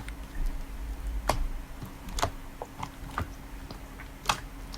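Slime being played with by hand, giving irregular sticky clicks and small pops, with a faint steady hum underneath.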